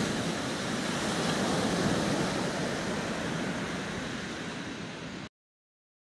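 Waves breaking and washing up a sandy beach, a steady rushing surf sound. It eases slightly, then cuts off abruptly a little after five seconds in.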